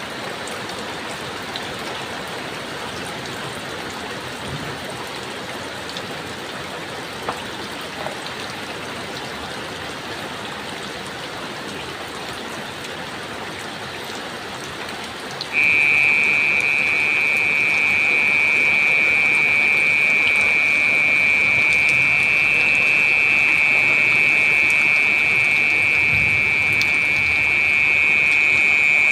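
Heavy rain falling steadily, with a few faint ticks of drops. About halfway through, a loud, steady, high-pitched whistling tone starts suddenly and holds.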